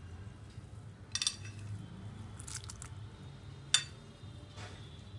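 Sliced onions being handled in salted water in a glass bowl: a few short wet splashes and clinks against the glass, the sharpest about three-quarters of the way through, over a steady low hum.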